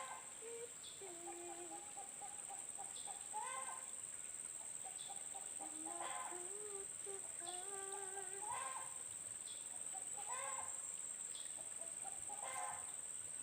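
Chickens clucking, with short pitched calls repeating about once every second or two. A steady high-pitched hum runs underneath.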